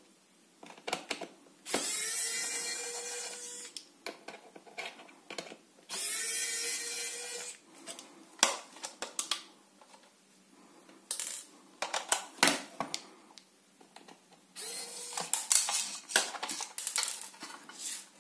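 Electric precision screwdriver whirring in two runs of about two seconds each, its pitch rising as it spins up, while it drives out the screws holding a soap dispenser's circuit board, with a shorter run near the end. Sharp clicks and taps of small screws and the metal housing being handled come in between.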